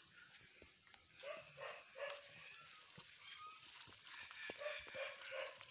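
Domestic ducks quacking faintly, several short quacks in two bunches, one about a second in and one near the end.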